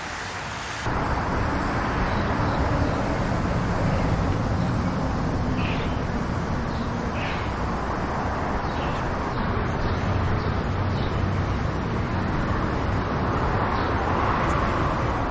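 Steady street traffic noise with passing vehicles, and a few short bird chirps in the middle.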